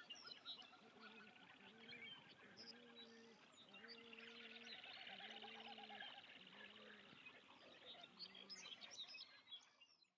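Ducklings peeping in quick, high chirps among other wetland bird calls, with a series of six low, even-pitched calls spaced about a second apart through the middle; the sound fades out near the end.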